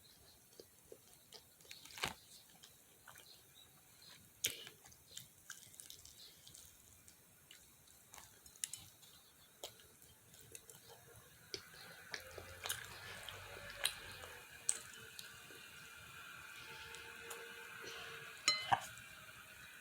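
Fried chicken being eaten close to the microphone: faint wet chewing and smacking with scattered sharp clicks and crunches from biting and handling the pieces.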